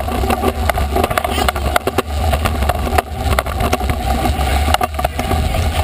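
Stunt scooter rolling across a concrete floor: a steady low rumble from the wheels, with frequent sharp clicks and knocks as the scooter and camera rattle.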